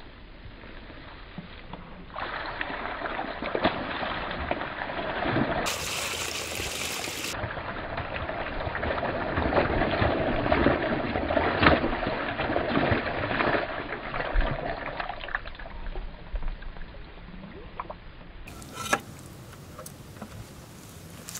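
Water pouring and splashing out of a plastic bucket mouse trap onto grass as it is emptied. The gush starts about two seconds in, is heaviest in the middle and tapers off well before the end.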